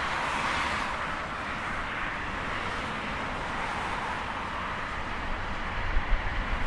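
Highway traffic: a steady wash of tyre noise from vehicles passing at speed, swelling as cars go by, with some low rumbling buffets toward the end.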